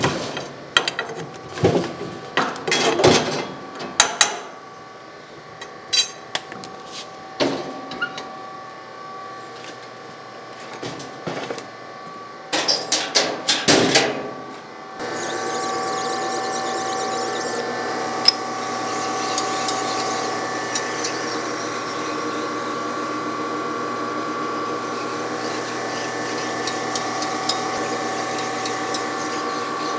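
Knocks and clatter of a wood stove being loaded with a log and its door and cabinet shut. About halfway through, a surface grinder takes over, running steadily with an even hum and several fixed tones while it warms up.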